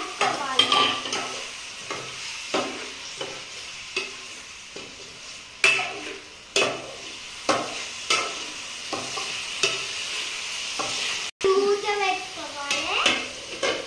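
Steel spoon stirring chicken pieces in a stainless steel bowl: irregular clinks and scrapes of metal on metal, roughly one every half second to a second.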